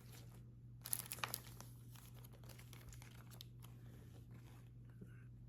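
Packaging crinkling as the box's small parts are handled: a short cluster of crackles about a second in, then faint room tone with a steady low hum.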